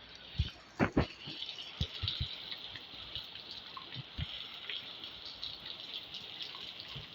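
Steady rain hiss, with several dull thumps; the loudest two come close together about a second in.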